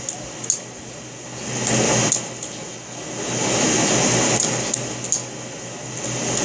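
A balisong (butterfly knife) being handled, its metal handles and latch clicking against each other about ten times in uneven groups, over a steady background hum.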